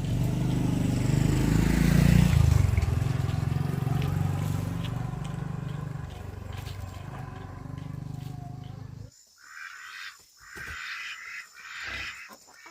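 A motor runs with a low steady hum, loudest about two seconds in, then fades and cuts off about nine seconds in. Short separate animal calls follow.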